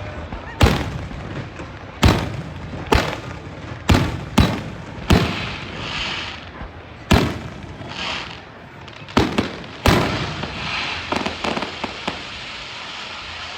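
Aerial fireworks bursting: about nine sharp booms over ten seconds, some followed by a crackling hiss, then a run of small crackles near the end.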